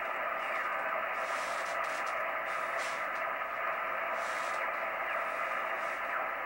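Steady receiver static from an HF ham transceiver's speaker on the 75-meter band, an even hiss limited to a narrow voice-width band, with no station coming through. Faint whistles slide in pitch near the end as the dial is turned.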